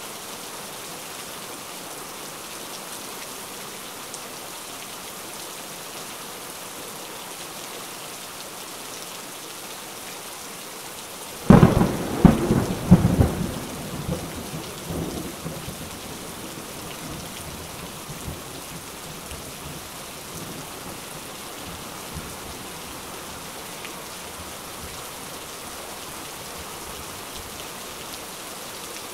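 Steady rain, with a loud thunderclap about eleven seconds in: a few sharp cracks over about two seconds, then rumbling that fades away over several seconds.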